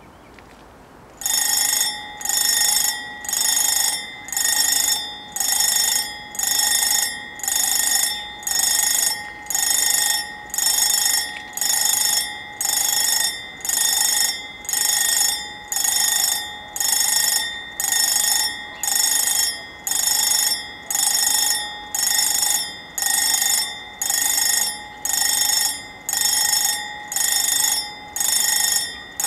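WSSB level-crossing warning bells start about a second in and ring in a steady repeated pattern, a little over one stroke a second, each stroke fading before the next. The crossing is activating for an approaching train.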